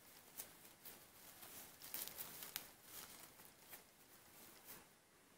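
Faint rustling and scratching of a fabric dragon hand puppet being handled, fingers rubbing its cloth and felt spines, with a few sharper scrapes about two seconds in.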